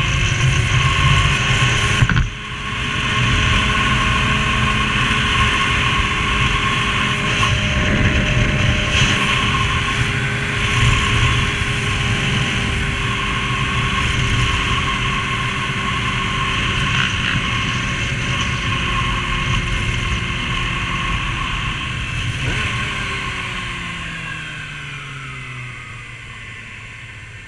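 Motorcycle engine running at road speed under a steady rush of wind noise. About two seconds in the level drops for a moment. Near the end the engine note falls and fades as the bike slows.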